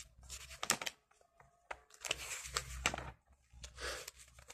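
Faint rustling and handling noises with a few soft clicks.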